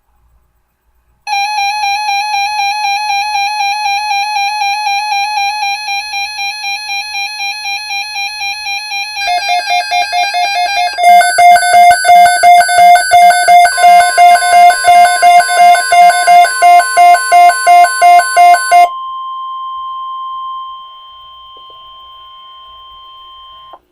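Weather alert radio alarm: a warbling electronic tone, then fast electronic beeping at about two and a half beeps a second. Under the beeping, from about 14 s in, comes the steady single-pitched 1050 Hz NOAA Weather Radio warning alarm tone, which signals an alert broadcast. It runs on alone after the beeping stops, drops in level near the end, and cuts off just before the end.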